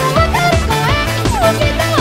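Upbeat electronic pop song sung by synthesized UTAU voices, their pitch sliding between notes, over a steady drum beat and bass.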